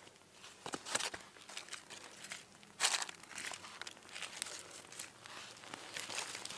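Dry birch-bark tinder crinkling and crackling as a hand works it and it catches alight and burns, with irregular sharp crackles, the loudest about one second and three seconds in.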